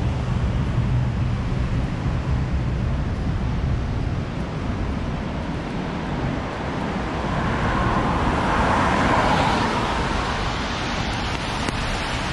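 Steady wet-street ambience with a low rumble, and a car's tyres hissing past on the wet road, swelling about seven seconds in and fading a few seconds later.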